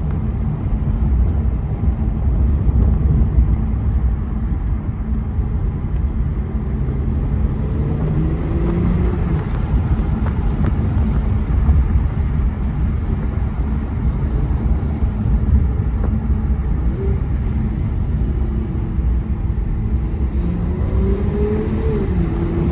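2018 Mercedes-AMG E43's twin-turbo V6 running under way, with a steady low rumble of engine and road noise; the engine pitch rises and falls a few times, about eight seconds in and again near the end.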